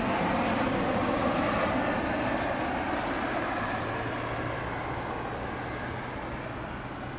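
Jet airliner engine noise, a broad rushing sound that slowly fades as the aircraft moves away.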